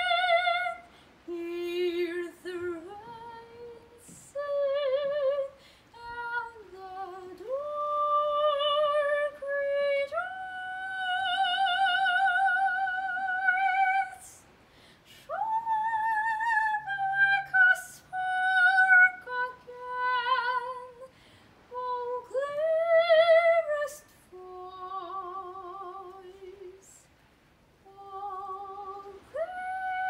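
A solo female soprano singing an art song a cappella, in classical style with a wide vibrato. She sings several phrases of held notes with short breaks between them, including one long sustained note a little after a third of the way in.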